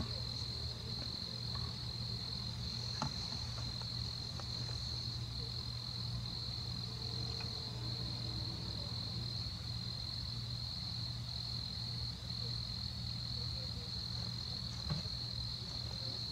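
Crickets trilling steadily in a high, slightly pulsing chorus, over a low steady hum.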